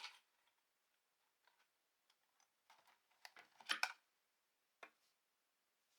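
Sparse light clicks and knocks of small hard objects being handled, with a quick cluster of sharper clicks about three to four seconds in and one more click near five seconds.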